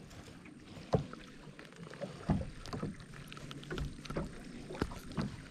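Handling noise as a just-landed largemouth bass is gripped and unhooked in a boat: a few sharp knocks and clicks over quiet rustling. The clearest knocks come about a second in, just past two seconds and near the end.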